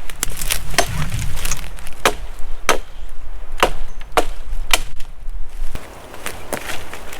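Chopping into wood with a hand blade, a series of sharp strikes roughly every half second that stops a little before six seconds in.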